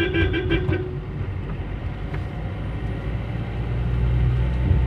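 Inside a moving car: a horn beeps rapidly, about five short beeps a second, and stops about a second in. Steady engine and road noise runs underneath and grows louder near the end.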